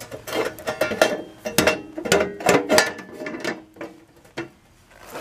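Sheet-metal rocker patch panel clanking and rattling against the van's body as it is pushed and shifted into place by hand, a quick string of knocks with a short metallic ring, dying down after about three seconds to a single knock near the end.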